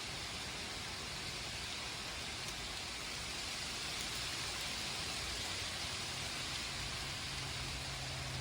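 Steady rain from a thunderstorm, an even hiss of falling water. About six seconds in, a low steady hum joins it.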